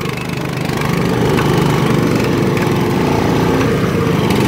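Engines of a Honda Big Red and a go-kart running steadily as both climb a dirt trail, the sound growing a little louder in the first second.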